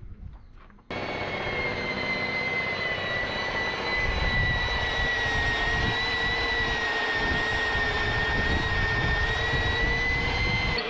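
A machine starts abruptly about a second in and runs steadily: a high whine over a loud hiss, with a fainter lower hum.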